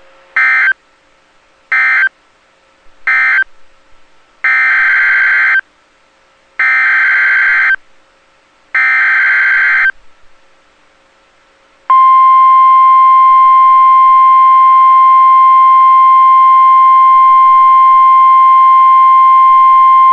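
Emergency Alert System SAME data tones from NOAA Weather Radio. First come three short bursts of warbling digital data, the end-of-message code closing the previous alert. Then come three longer bursts, the header for the next alert, and about two seconds later the loud, steady single-tone warning alarm begins, which announces the tornado warning that follows.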